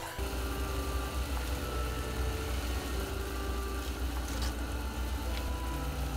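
Pot of seafood broth at a rolling boil: a steady low rumble with a hiss of bubbling. A few small splashes about four to five seconds in as dried kelp is dropped in.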